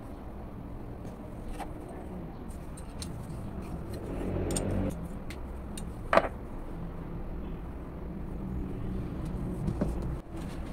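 Small metal clicks from a homemade steel tap wrench being handled and adjusted, with one sharp metallic clink about six seconds in and a few more clicks near the end as it is set down. A steady low rumble runs underneath.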